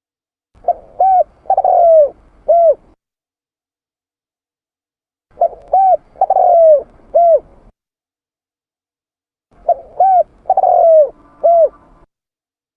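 Spotted dove (tekukur) cooing: three identical phrases, each of four coos, two short, a longer drawn-out one, then a short one, with silent gaps of about two and a half seconds between phrases.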